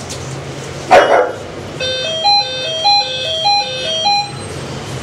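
A pug puppy gives a single bark about a second in. Then a simple electronic jingle of clean beeping notes plays, stepping between a few pitches and repeating its short phrase.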